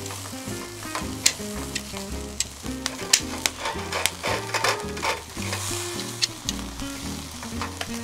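Steak sizzling and crackling on a charcoal grill's wire grate while it is turned with metal tongs, with many sharp pops. Background music with low, stepping bass notes plays underneath.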